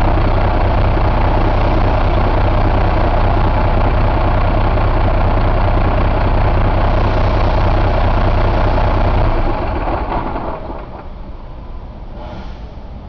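Cummins ISX inline-six diesel running at a steady idle, then stopping about ten seconds in, its low rumble dying away within a second or two.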